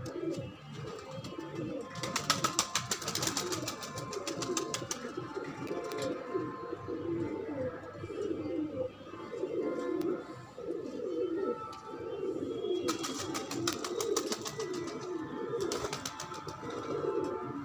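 A flock of domestic pigeons cooing continuously in a low, overlapping warble, with two spells of rapid clicking a few seconds long, one about two seconds in and another near the end.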